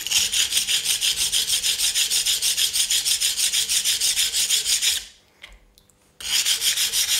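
The flat back of a steel chisel rubbed back and forth on a coarse honing stone: gritty scraping in rapid, even strokes, several a second, pausing for about a second near the end and then resuming. The chisel's back is being flattened and cleaned up before sharpening.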